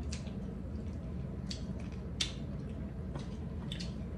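Eating sounds: a handful of short, wet, smacking clicks from chewing and handling food, scattered a second or so apart.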